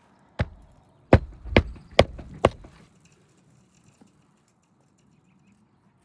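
Nails being driven into asphalt roof shingles during a re-nailing repair: one sharp strike, a short pause, then four more in quick succession about two a second.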